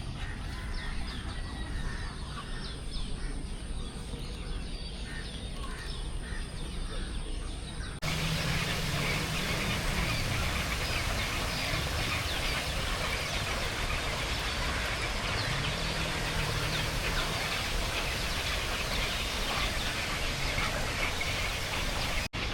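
Many birds chirping and calling, short quick notes over a steady background. About eight seconds in the sound jumps to a louder, denser wash of noise with the chirping still running through it.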